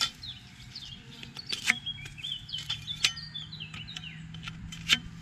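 Steel greenhouse frame profiles clinking and knocking as they are handled and push-fitted together, four sharp knocks in all. A bird chirps in the background for a second or two in the middle.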